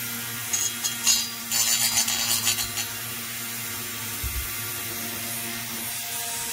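Small electric rotary tool running with a steady hum, with quick clicking and rattling from about half a second to three seconds in as it and the aluminium chainsaw cylinder are handled.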